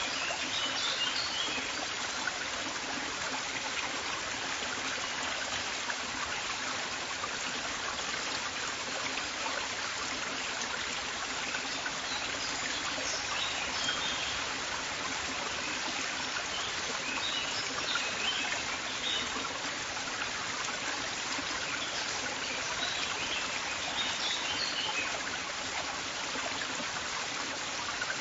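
River water flowing steadily, a continuous rushing and babbling. Small birds chirp briefly now and then above it.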